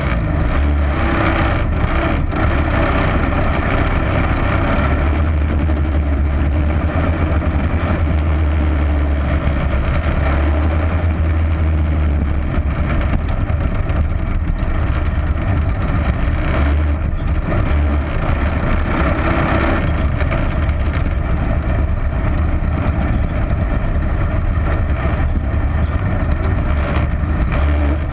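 Onboard engine of a dirt-track race vehicle running steadily at low speed, heard as a loud, continuous low rumble through the onboard camera.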